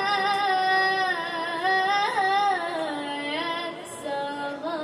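A young girl singing solo into a handheld microphone. Her single voice holds long notes that waver and bend between pitches, then moves to shorter, lower notes near the end.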